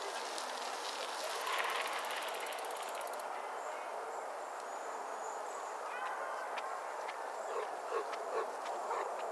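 Park ambience: a steady murmur of distant voices, with a fast high ticking that stops about three seconds in and a few sharp knocks near the end.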